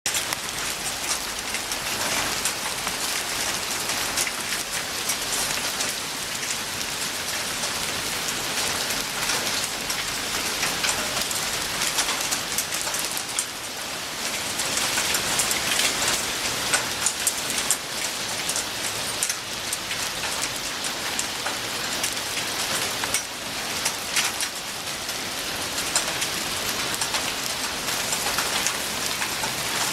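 Small hailstones falling in a minor hailstorm, a dense steady patter of countless tiny ticks on hard surfaces, swelling a little at times but never letting up.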